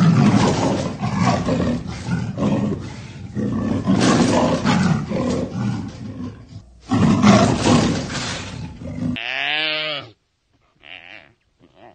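Cheetah vocalising: a loud, rough, noisy sound that swells and dips in uneven surges for about nine seconds, then cuts off. It is followed by a short call that falls in pitch and two brief, fainter calls.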